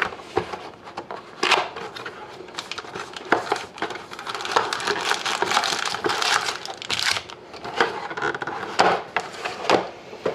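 Plastic wrapping and cardboard packaging of a box of trading cards being handled and opened, crinkling and crackling in quick, irregular bursts.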